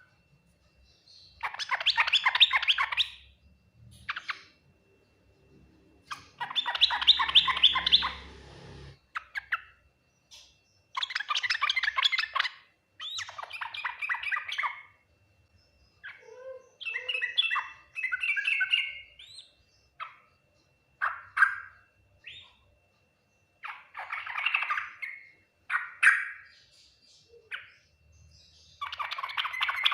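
Yellow-vented bulbul (trucukan) singing: a string of short, rapid chattering phrases, each one to two seconds long, with brief pauses between them.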